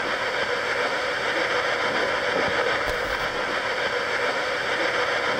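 Spirit box radio static played through a small portable speaker: a steady hiss of sweeping radio noise, boosted in volume, with a brief crackle about three seconds in.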